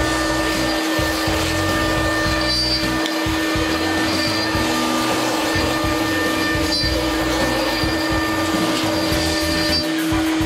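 6090 CNC router's spindle running with a steady whine while the bit carves wood, a rasping cutting noise beneath it.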